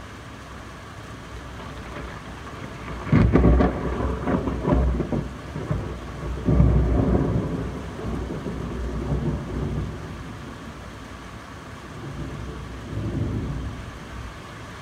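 Thunder during a rainstorm: a sudden crackling clap about three seconds in, then rolling rumbles that swell again and die away, with a last fainter rumble near the end, over steady rain.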